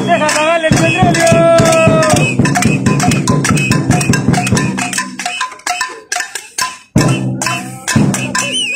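Protesters beating a fast, steady rhythm on hand percussion, about five strokes a second, with shouted voices over it in the first two seconds. The beating thins out after about five seconds and picks up again near the end.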